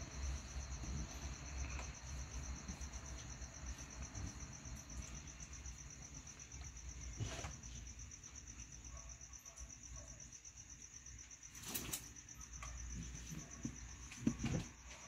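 A cricket chirring steadily in the background: a high, fast-pulsing trill over a low rumble. A few faint clicks and knocks break in, the sharpest about three-quarters of the way through.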